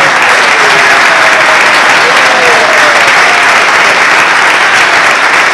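Audience applauding loudly and steadily, with a few voices calling out over the clapping.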